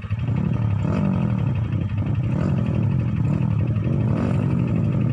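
Dirt bike engine running close by with a steady low firing pulse, its pitch rising and falling several times as the throttle is blipped and eased off.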